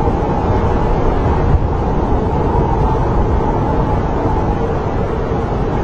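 Snowstorm wind blowing hard and steadily, a deep rumble with a faint whistling howl held above it.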